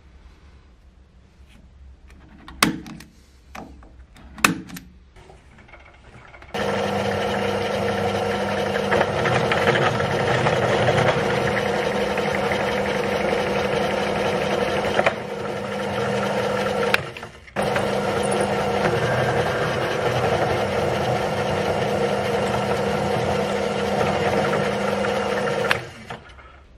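Two sharp taps on a centre punch marking the aluminium part, then a drill press runs steadily as a twist drill bores into the aluminium, with a short break about two-thirds of the way through.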